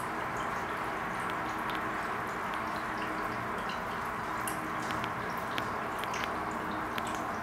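Aquarium filter running: a steady trickle of water with scattered small drips over a faint low hum.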